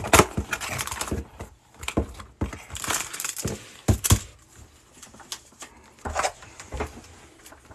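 A cardboard trading-card hobby box being torn open and handled: sharp tearing and crackling of cardboard and plastic wrap with taps and scrapes, in separate bursts with quieter gaps between them.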